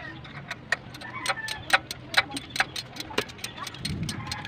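Ratchet wrench clicking in short, irregular strokes, about three or four clicks a second, while exhaust manifold nuts are run down.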